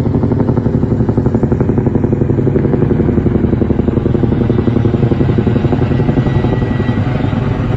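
Chinook tandem-rotor helicopter passing close, its rotor blades making a loud, steady, rapid thudding beat.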